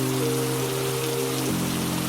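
Steady rainfall, an even hiss of many drops, with sustained synthesizer-like chords held underneath that change to a new chord about a second and a half in.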